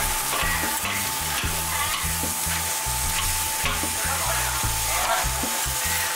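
Grilled cold noodle sheets (kao leng mian) sizzling on a flat griddle, with the metal spatula scraping and tapping the plate several times. A steady high tone runs underneath.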